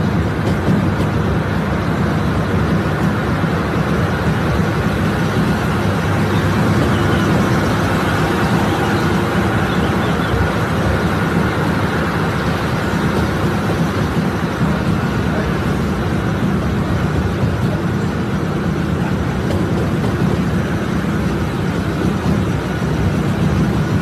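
Steady running noise of a mountain railway train heard from a carriage window: a continuous low rumble with a rushing hiss over it.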